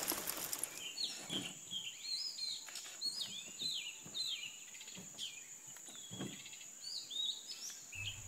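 Birds chirping over and over in short, quick rising-and-falling calls, over a steady high-pitched whine; fairly faint.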